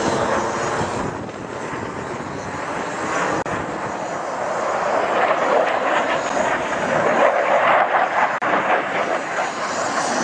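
Jet roar of F/A-18 Hornets flying past, a continuous rushing noise that swells to its loudest about seven seconds in.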